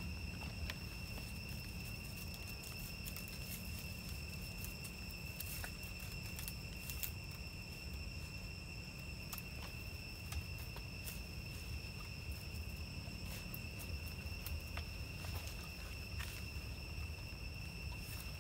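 An insect's steady, unbroken high-pitched trill, with scattered light clicks and rustles.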